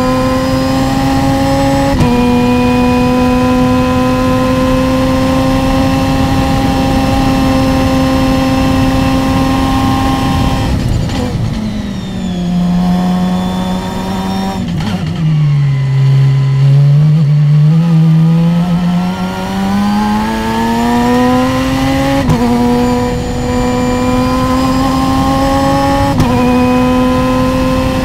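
Open-wheel single-seater race car's engine under hard load, its high note slowly climbing, then falling in pitch as the car slows for a corner about ten seconds in and climbing again as it accelerates out, with short steps in the note as it shifts up near the end. Steady wind and road noise runs underneath.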